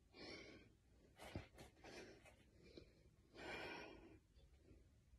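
Faint, heavy breathing: a few long, breathy exhales from a woman straining to hold a forearm plank near exhaustion.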